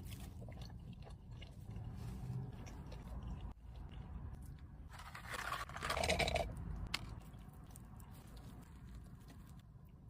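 Close-up eating sounds: a person chewing and crunching food, with many small crackles and a louder crunching burst between five and six and a half seconds in.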